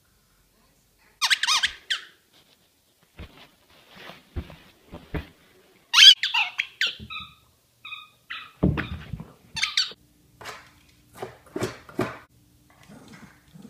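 Dogs at play: short high-pitched squeaks about a second in and again around six to eight seconds in, then a run of short knocks and scratches as a dog paws at a cardboard box.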